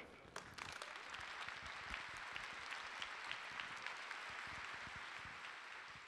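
A large audience applauding, many hands clapping together at the close of a talk, steady for several seconds and then tapering off near the end.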